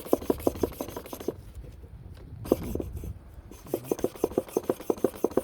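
Hair clipper cutting blade rubbed back and forth on a diamond sharpening stone: a fast, even rhythmic scraping of about six strokes a second, which stops for about two seconds in the middle and then resumes.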